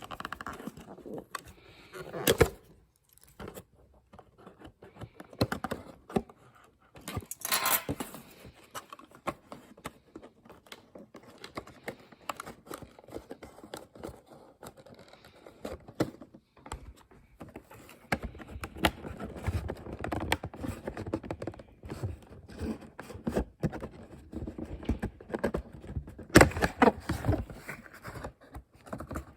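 A boxed toy being unpacked: irregular clicks, scrapes and rustles of packaging being handled, with a few louder knocks.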